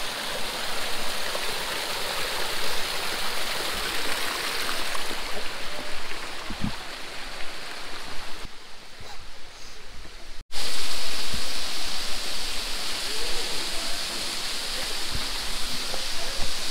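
Creek water rushing and splashing over a small rocky cascade, a steady even noise. About ten and a half seconds in it cuts out for an instant and comes back louder, with a few soft low thumps.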